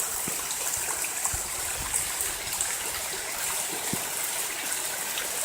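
Rainwater runoff flowing and splashing steadily over the ground, a continuous rushing with small drips and splashes, as stormwater sheets across the ground and channels downhill.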